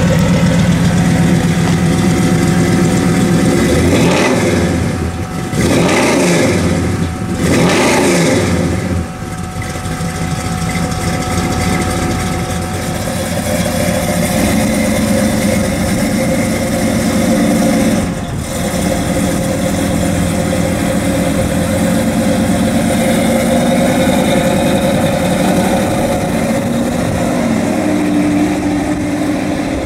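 Ford Ranchero's Boss 351 Cleveland V8, built with a Comp cam and MSD ignition, running loud. About four to nine seconds in it revs up and drops back three times, then runs more steadily as the truck drives.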